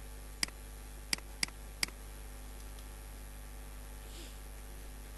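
Four sharp computer-mouse clicks within the first two seconds, the last three close together, over a steady low electrical hum.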